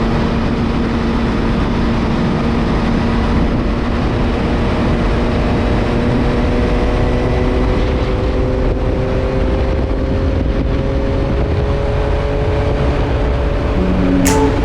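Yamaha MT-09's three-cylinder engine running at highway speed, its note rising slowly as the bike speeds up, under a steady heavy rush of wind noise.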